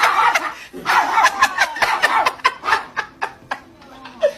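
An animal making a rapid series of short, sharp calls, busiest in the first three seconds and quieter after.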